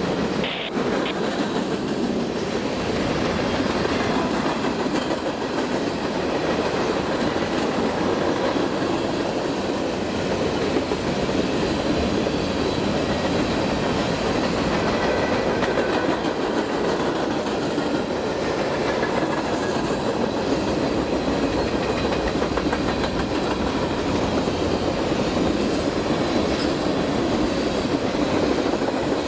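Freight train cars rolling past steadily on the rails.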